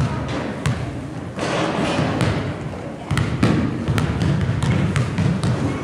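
Basketball bounced on a hardwood gym floor: a run of irregularly spaced thuds over a steady background hubbub.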